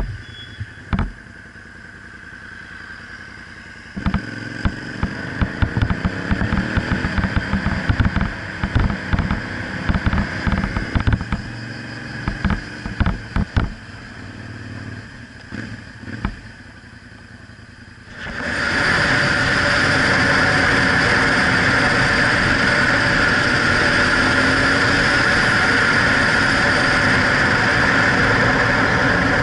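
Suzuki SV650 V-twin motorcycle being ridden, heard from a camera on the bike. At first the engine note rises as it accelerates, mixed with uneven thumps of wind buffeting the microphone. About two-thirds of the way in it changes suddenly to a steady, loud rush of wind and engine at speed.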